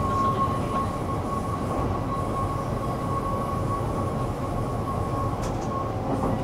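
Stockholm metro (tunnelbana) train running between stations, heard from inside the car: a steady rumble of wheels on the track with a thin, steady high whine that fades out near the end.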